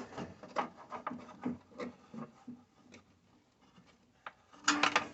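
Scraping, rubbing and light knocks of a hand and antenna cable being worked through a tight gap under a vehicle dash, busy for about two seconds and then thinning out. A brief louder burst near the end.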